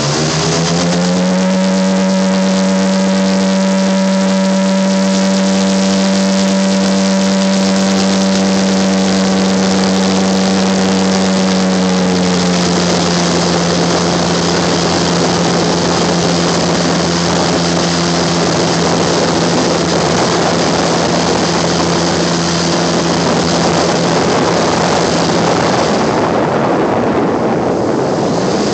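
Boat engine revving up in the first second, then running steadily under way. After about twelve seconds its tone sinks into a loud, even rush of wind and water noise.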